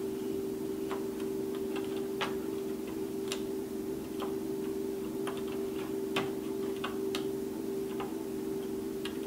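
Light, irregular clicks, about one a second, of a plastic hook working rubber bands over the plastic pegs of a Rainbow Loom, over a steady low hum.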